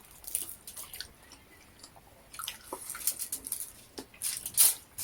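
Person chewing and biting into fried chicken: irregular wet chewing and smacking sounds, loudest near the end.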